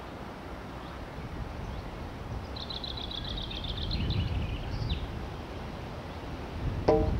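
Wind rumbling on the microphone, with a small bird trilling in the middle: a quick run of high chirps lasting about two seconds. A short pitched sound comes near the end.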